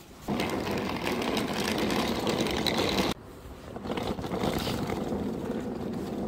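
Wheels of a hard-shell carry-on suitcase rolling steadily over a wooden floor, cutting off abruptly about three seconds in, then a similar rolling rumble building again on pavement.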